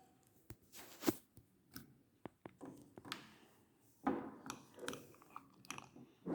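White glue and borax slime being stirred in a cup as it starts to thicken: faint, irregular sticky squelches and scrapes with small clicks of the stirrer against the cup, the loudest about a second in.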